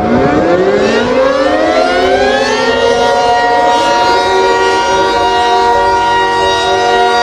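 Emergency alarm siren winding up: several tones rise together in pitch for about three seconds, then hold as a loud, steady chord.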